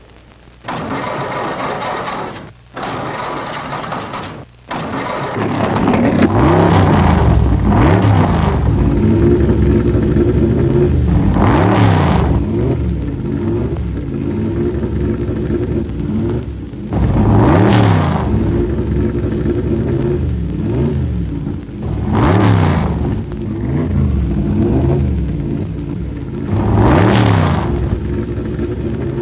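Racing car V8 engines revving up and down through the gears, with loud pass-bys roughly every five seconds. The opening seconds are quieter, with two brief cut-outs.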